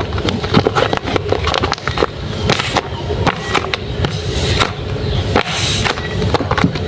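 Packaging being handled: irregular rustling, crinkling and tapping, with several sharper high-pitched swishes.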